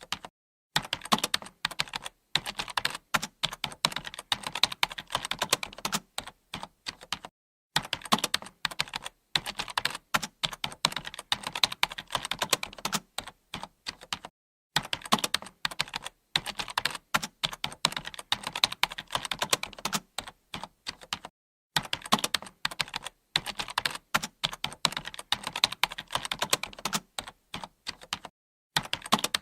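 Computer keyboard being typed on continuously, rapid runs of key clicks broken now and then by brief pauses.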